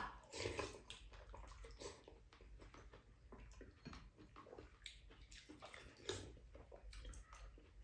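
Faint eating sounds: wet slurping and chewing of soupy food, with small clicks of chopsticks and spoons.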